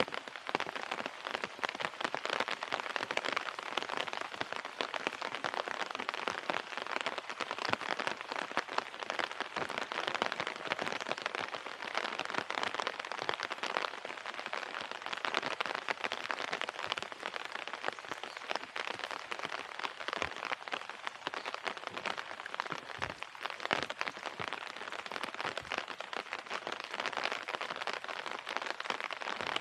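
Steady, dense patter of rain falling on surfaces, even throughout.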